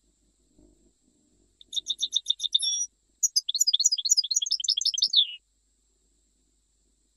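European goldfinch singing: a short run of quick repeated notes about two seconds in, then a longer burst of rapid, varied twittering that ends in a few falling notes about halfway through.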